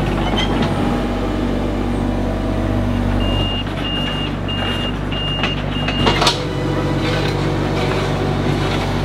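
Mini excavator engine running steadily while its travel alarm beeps five times, about two beeps a second, a few seconds in. It ends with a single sharp knock about six seconds in.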